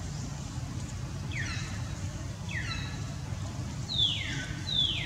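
A newborn macaque crying: four short squeals, each sliding down in pitch, the last two louder.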